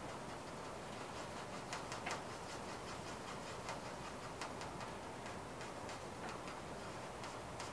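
Faint, irregular light ticks and scratches of a carbon pencil on a drawing pad on an easel as it shades in small circles, over a steady low room hiss.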